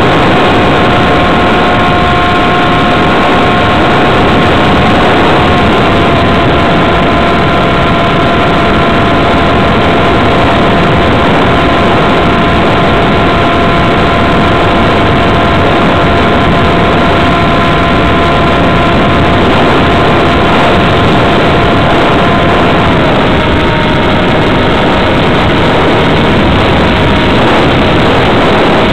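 Radio-controlled model plane's motor and propeller running steadily, heard from a camera on board, under a heavy rush of wind. The whine drops slightly in pitch about six seconds in and again near 23 seconds.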